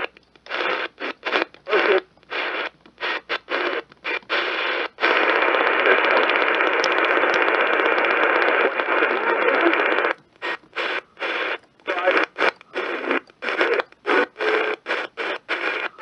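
Static hiss from a Voyager Pro radio's speaker, cut by many brief dropouts over the first five seconds, steady for about five seconds, then broken up again by rapid dropouts near the end.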